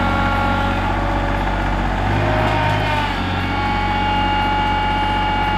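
Rural King RK24 compact tractor's engine running hard at high revs, under load as it pulls a tree stump through a 4-to-1 snatch-block rigging. Its pitch dips briefly about two to three seconds in.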